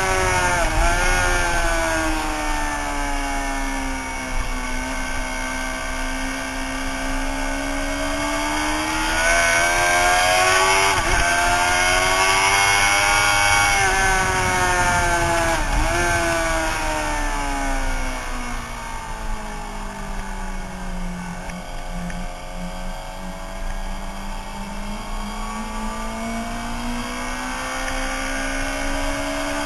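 Suzuki sportbike engine at track speed, heard from a camera mounted on the bike, with wind noise. The engine pitch falls and climbs in long sweeps, with a few quick blips of the revs.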